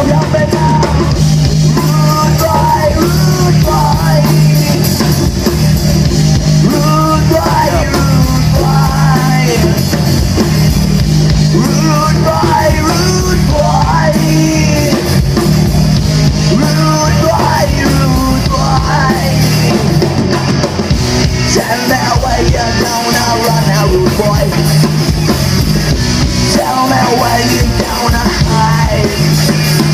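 Live rock band playing loudly: electric guitar, bass guitar and drum kit, with a lead line sliding and bending over the steady rhythm.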